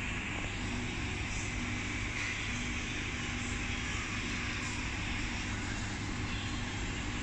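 Steady background hum and hiss of a fast-food restaurant's dining room, with a low steady tone and no distinct events.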